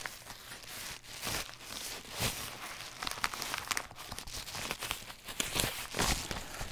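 Paper mailing envelope being torn open and handled: irregular crinkling and ripping of paper.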